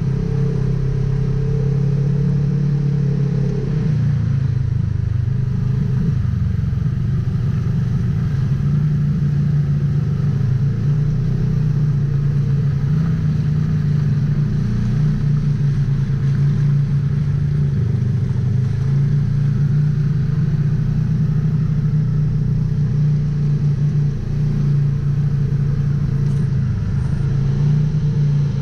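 Polaris RZR XP 1000 side-by-side's twin-cylinder engine running steadily under way, its pitch shifting only a little.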